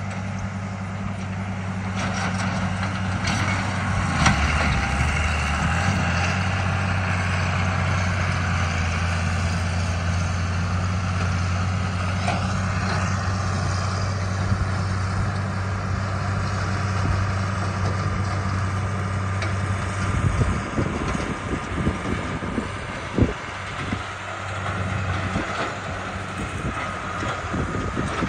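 John Deere tractor engine running steadily under load while pulling a rotary cutter through brush. About twenty seconds in, the steady drone gives way to uneven knocks and rattles.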